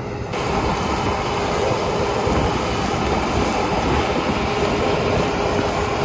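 John Deere 9770 STS combine running as it cuts wheat, a steady mechanical drone with a faint steady hum that steps up in loudness about a third of a second in.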